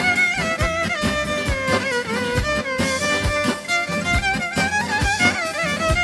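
Instrumental passage of an Albanian folk song: a violin plays an ornamented melody with slides between notes over a steady percussion beat.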